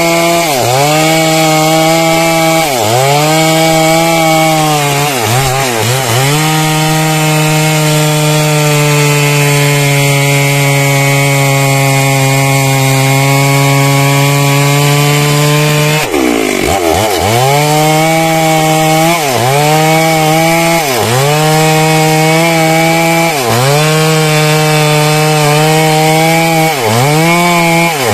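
Stihl MS 382 two-stroke chainsaw running at high revs while cutting into a teak trunk. Its pitch dips briefly every second or two as the chain bites, holds steady for about nine seconds in the middle, then drops sharply and resumes the repeated dips.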